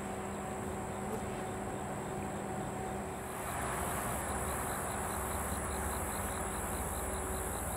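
Insects calling: a steady high buzz, joined about three seconds in by a quick pulsed chirp at about four a second, over a low rumble that grows louder at the same point.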